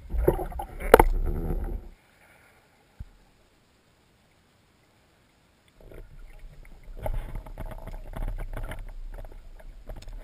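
Muffled underwater noise heard through a camera housing: water movement and knocks from the diver's handling, with one sharp knock about a second in. After a few seconds of dead silence comes a rustling stream of small clicks and knocks while a speared king salmon is in front of the camera.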